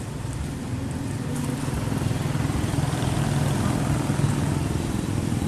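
Steady low rumble of riding noise from a moving e-bike, growing slightly louder about two seconds in.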